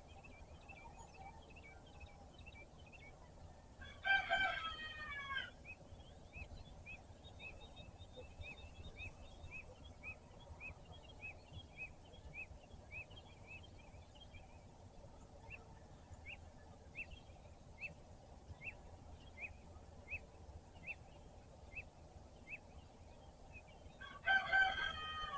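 Rooster crowing twice, about 4 s in and again near the end; the crows are the loudest sounds. Between them a songbird repeats a short high chirp about twice a second.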